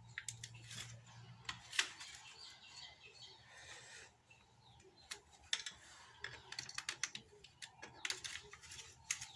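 Irregular light clicks and scraping of a flat screwdriver prying against a plastic ignition coil pack to work it up off its spark plug, with one sharper click about two seconds in.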